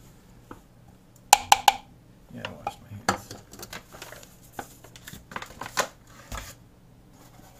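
A measuring cup clinks sharply against a mixing bowl three times in quick succession, about a second and a half in. Scattered lighter clinks and rustling of the paper flour bag follow as the bag is folded shut and set aside.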